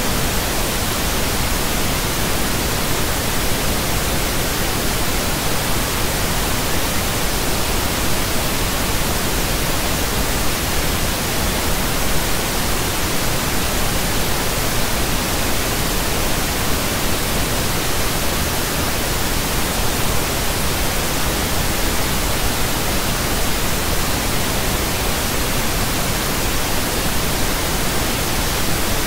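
Pink noise: a steady, even hiss spread across the whole range, fuller toward the low end, unchanging throughout.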